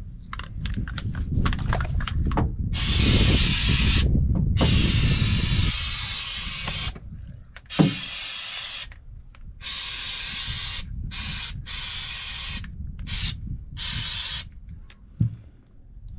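Aerosol can of spray-on rubber sealant hissing in repeated bursts of a second or two each, with short pauses between. Two sharp knocks fall between the bursts.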